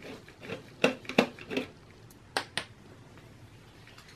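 A Torx screwdriver and a small screw clicking and tapping against the aluminium case of a Mac mini as the screw is taken out. There are several sharp clicks in the first three seconds: two loud ones about a second in and another two a little after two seconds.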